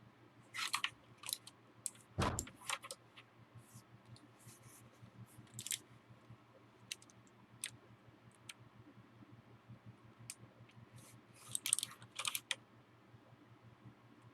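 WASD mechanical keyboard with Cherry MX Blue switches being handled: scattered, irregular clicks and knocks, with a heavier thump about two seconds in and a quick cluster of clicks near the end.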